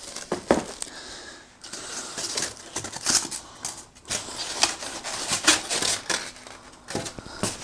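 Unpacking noise: plastic wrap crinkling and polystyrene packing rubbing as a plastic-wrapped table frame is lifted out of its foam-lined cardboard box, with irregular rustles, scrapes and a few sharp knocks.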